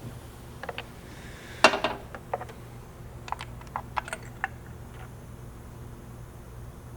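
Scattered small clicks and clinks of hand tools being handled, irregular rather than a steady ratchet, with the loudest about one and a half seconds in and a quick run of them around the middle, over a steady low hum.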